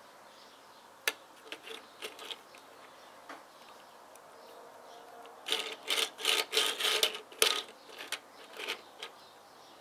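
Plastic building-brick toy van handled and turned over on a wooden table: a sharp click about a second in, a few light clicks, then a run of plastic clicking and rubbing against the tabletop past halfway.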